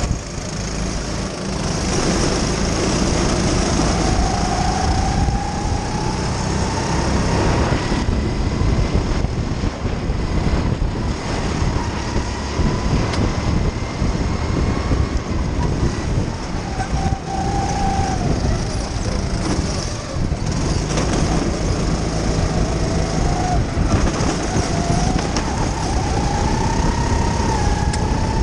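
Racing kart engine heard from onboard, its pitch climbing along the straights and dropping off into the corners, under a steady rushing noise.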